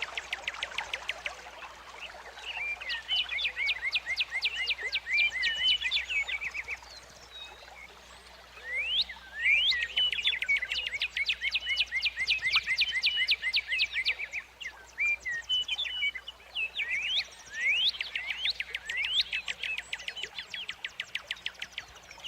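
Songbird singing in repeated phrases of rapid, trilled notes, each phrase a few seconds long with short pauses between.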